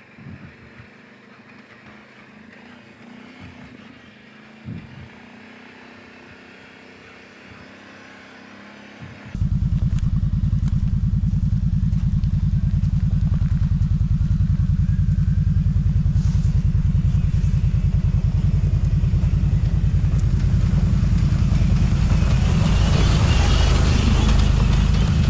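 Kawasaki Brute Force 750 ATV's V-twin engine running at trail-crawling pace. It is faint at first, then about nine seconds in it comes in suddenly loud and close, a steady low engine beat that carries on to the end.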